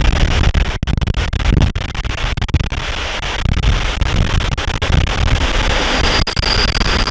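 Loud wind buffeting on the microphone over the low rumble of a train on the move. About six seconds in, a high steady squeal sets in.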